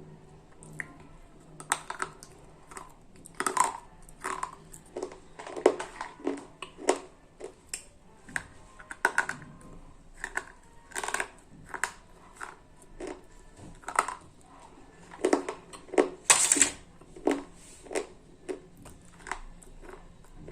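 Slate pencils being bitten and chewed close to the microphone: irregular sharp crunches, about one or two a second, one louder than the rest near the end.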